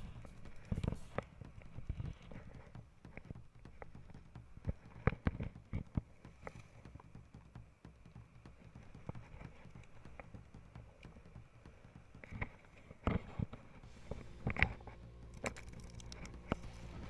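Wind buffeting an action camera's microphone with a low rumble, over waves washing up a sand beach, broken by scattered sharp clicks and knocks.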